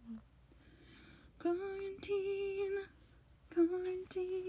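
A person singing to themselves in a high voice: four held notes in two pairs, with a pause of about a second between the pairs.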